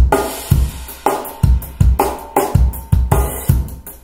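Drum kit solo played back through a pair of Paradigm Monitor SE Atom two-way, rear-ported bookshelf speakers and picked up in the room: kick drum, snare and cymbals in a steady beat, with heavy kick hits about twice a second.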